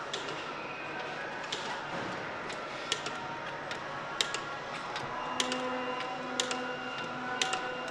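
Sharp metallic clicks, about one a second, from a hand tool tightening a car's wheel bolts, over a steady factory hum.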